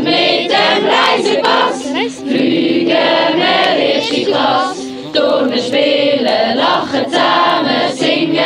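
A group of young voices singing a song together, like a choir.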